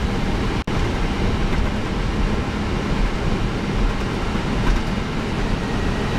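Steady flight-deck noise of an Airbus A319 taxiing with its jet engines at idle: an even roar of engine and ventilation air over a low rumble from the rolling airframe. It cuts out for an instant less than a second in.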